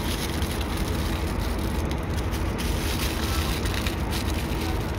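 Aluminium foil crinkling as it is pressed and folded around a whole fish, over a steady low rumble.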